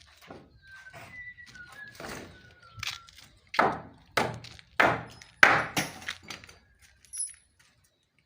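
Hammer striking roofing timber: a few light taps, then four heavy blows about two-thirds of a second apart.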